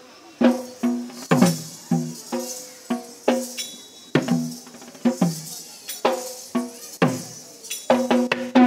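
A hand-played drum beating a fast dance rhythm, its deeper strokes dropping in pitch as they ring, over a steady high jingling.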